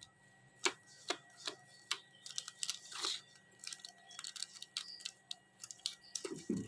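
A ringneck parrot's beak clicking and crunching as it chews, in irregular sharp clicks a few times a second, with a short rustle near the end.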